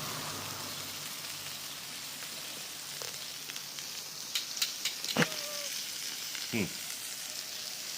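Meat sizzling on a barbecue grill: a steady hiss of fat and juices with scattered sharp pops and crackles past the middle. Two brief, falling sounds break in near the middle.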